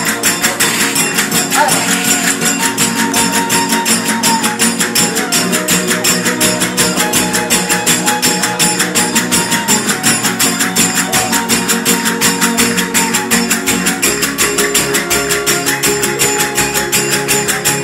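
Verdiales folk band playing: a violin carries the melody over strummed guitars, driven by a fast, even beat of tambourine jingles.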